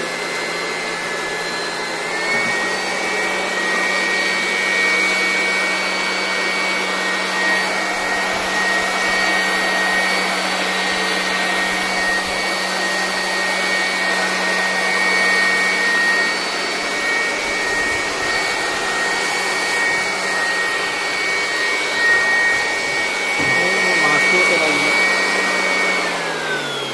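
Polymak 400 W electric hand blower running: its motor whine rises as it spins up, steps up once more about two seconds in, then holds steady at high speed over a loud rush of air. Near the end the whine falls as the motor winds down.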